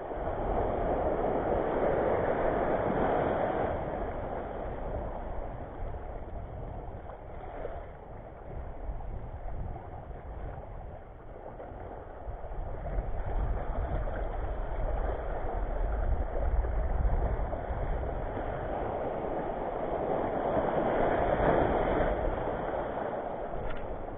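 Rushing noise of small waves washing over a shallow reef shore, mixed with wind on the microphone; it swells at the start, eases off, and swells again near the end.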